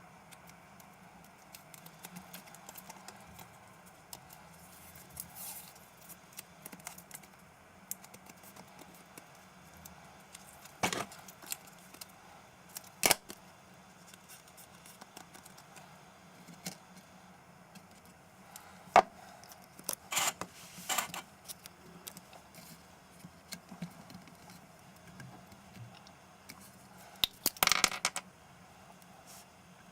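Scattered sharp clicks and taps of hands working on an opened laptop's internals with small tools and parts, with a quick run of rattling clicks near the end.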